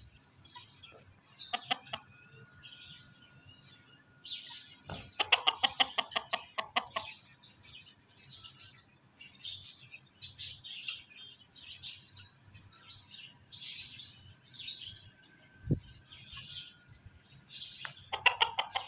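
A hen clucking in quick runs of notes: a short run about a second and a half in, a longer, louder one from about five to seven seconds, and another near the end. Short high chirps come and go throughout, and there is a single thump late on.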